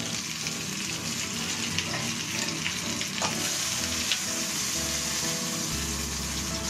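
Chicken thighs sizzling in oil in a nonstick frying pan, with a few short clicks of metal tongs against the pan as the pieces are turned and lifted out.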